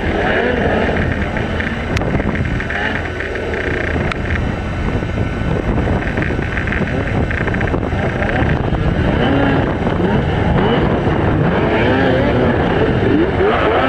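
Several racing snowmobile engines revving at once, their pitch rising and falling as the sleds accelerate and ease off around the track and over jumps.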